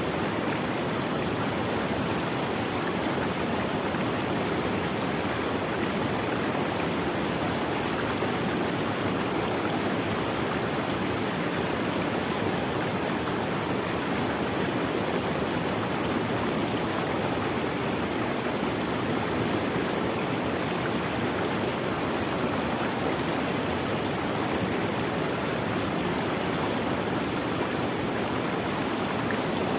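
Running water of a stream, a steady, even rush without change.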